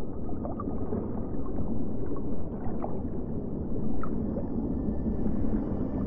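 Deep underwater rumble with a few short, squeaky calls rising in pitch: the sound-designed voice of a swimming prehistoric sea creature. Faint steady music tones come in near the end.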